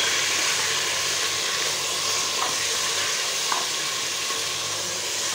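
Mutton pieces frying in hot oil in a pressure cooker, a steady sizzle with a couple of faint ticks in the middle.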